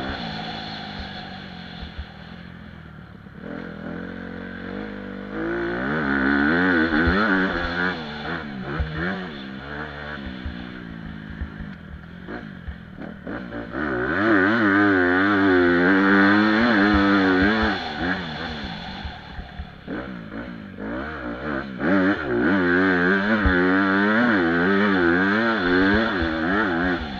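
Honda CRF250 four-stroke single-cylinder motocross engine heard from an onboard camera, revving hard and backing off in turn as the bike is ridden around a dirt track: three loud stretches of wavering, rising and falling revs with quieter off-throttle lulls between, over short knocks.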